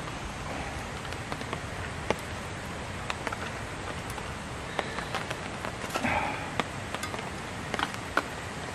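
Light clicks and taps of chopsticks and hands handling a metal bowl of somen noodles, with a brief rustle about six seconds in, over a steady background hiss.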